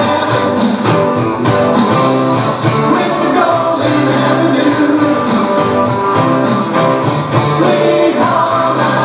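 A song with singing over instruments and a steady beat.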